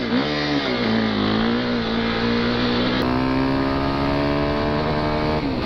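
Single-cylinder four-stroke dirt bike engines under way. First a KTM 450 EXC, whose note dips and then holds steady. About three seconds in, the sound cuts to a Yamaha WR400F, whose note climbs slowly and then drops near the end.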